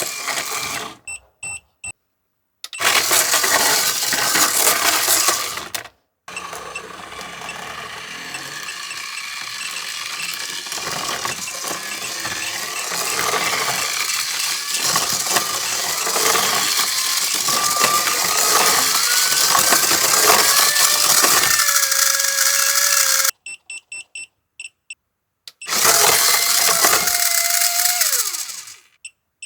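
A toy train's small electric motor and plastic gears whirring and rattling in several runs, stopping dead in between. In the longest run the whine rises steadily as the motor speeds up and then cuts off suddenly; near the end a last run winds down with a falling pitch. The motor is overdriven from a bench DC power supply far above its battery voltage.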